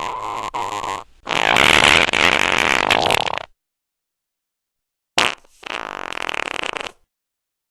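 Fart sounds, three in a row with dead silence between them: a short one, then a louder one lasting about two seconds, and a couple of seconds later another that starts with a sharp blast.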